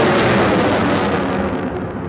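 Dutch F-16 fighter jet's engine in afterburner: a loud, rushing jet noise that dulls about a second and a half in as its high end falls away.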